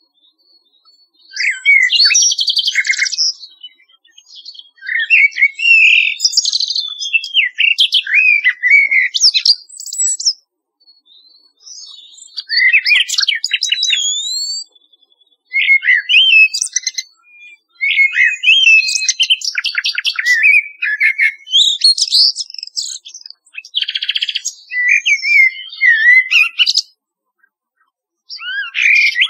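Common nightingale and Eurasian blackbird singing. Song phrases of one to several seconds are separated by short pauses, and several of them hold fast runs of repeated notes alongside whistled glides.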